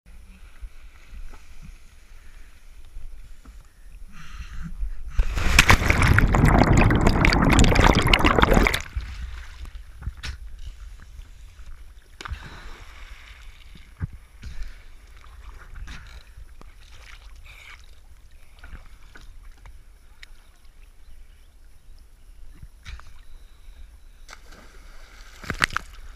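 Lake water sloshing and splashing around a camera at the water's surface, with a loud rush of splashing lasting about three and a half seconds near the start, then lighter sloshing with small splashes.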